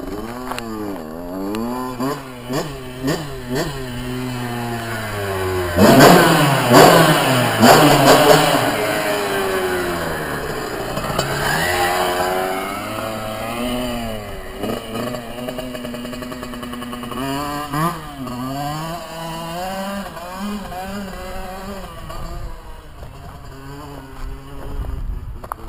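Kawasaki KX65 dirt bike's small two-stroke single-cylinder engine revving. It gives a string of quick blips, then a loud, high rev about six seconds in that slowly falls away, followed by more rising and falling revs.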